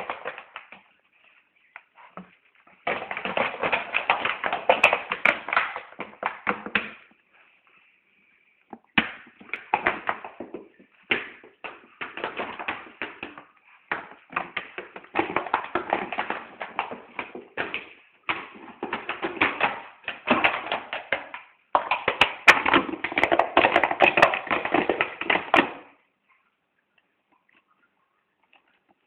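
A dog chewing an empty plastic drink bottle, the thin plastic crackling and crunching in long bursts of rapid clicks broken by short pauses. The crunching stops a few seconds before the end.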